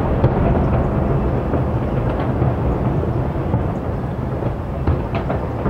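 Continuous rolling rumble of many distant aerial fireworks shells bursting one after another, with a few fainter cracks near the end.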